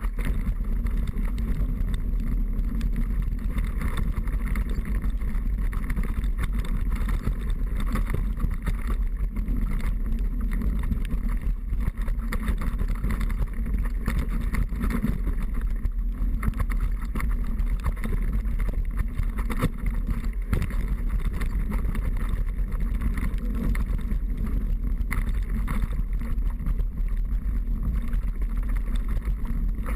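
Steady wind rush over the microphone with fast rattling and rumble, as from a camera riding on a downhill mountain bike during a descent.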